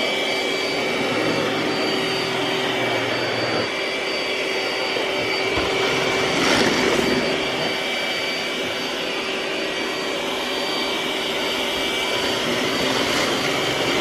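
iRobot Roomba s9+ robot vacuum running: a steady whir of motor and suction with a few constant whining tones, swelling briefly about halfway through.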